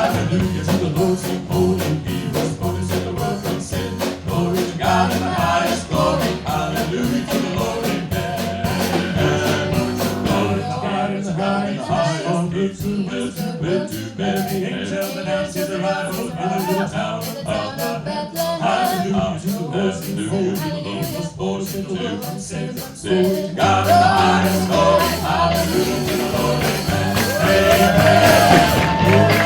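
Band music with a steady beat, bass and a melodic instrumental lead, without clear lyrics; the beat thins out briefly about a third of the way in, and the music grows fuller and louder near the end.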